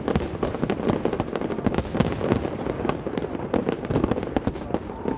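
Fireworks going off in quick, irregular succession: a dense run of sharp pops and bangs, several a second, over a constant crackle.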